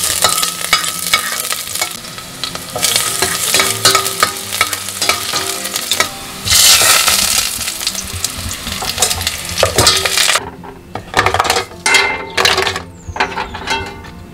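Garlic sizzling as it sautés in a stainless steel pot, stirred and scraped with a spatula, with a louder burst of sizzle about six and a half seconds in. After about ten seconds the sizzle drops away, and a run of sharp clattering knocks follows as clam and mussel shells go into the pot.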